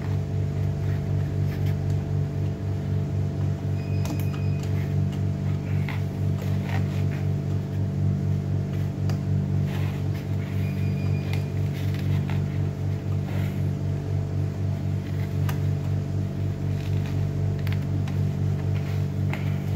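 Steady low electrical hum of a running mains-powered machine, pulsing about three times a second. Small clicks and knocks of hands handling metal parts sound over it, with two short high tones about six seconds apart.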